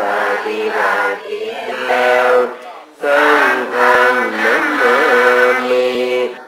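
A man singing a slow, chant-like Thai melody in two long phrases, with a short break about halfway through and long held notes that waver in pitch.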